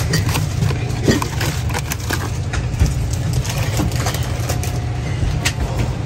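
Steady low background rumble with scattered light clicks and knocks, the sharpest about a second in.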